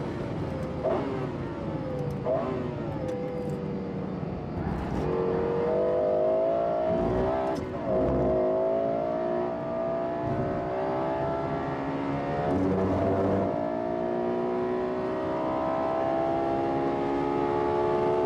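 Lexus LFA's 4.8-litre V10 engine pulling hard through the gears. Its pitch climbs steadily for several seconds, then drops sharply at each gear change, several times over.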